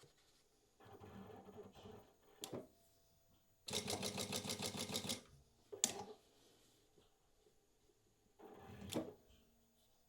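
Prosew PS-1903SX industrial walking foot sewing machine sewing a short segment of a programmed pattern: a quick run of about a dozen stitches in a second and a half midway through, with sharp clicks just before and after it and quieter handling noise around it.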